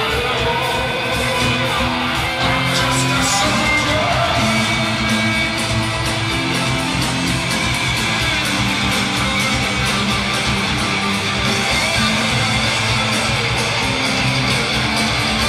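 Heavy metal band playing live: electric guitars over bass and drums, with some singing.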